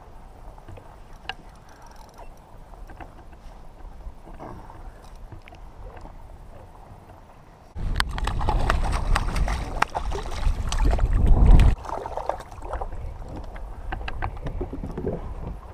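Choppy water lapping against a kayak with small knocks of gear. About halfway through, a loud spell of a few seconds of splashing and close rustle with many sharp clicks, as a tautog (blackfish) is brought up alongside the kayak and landed.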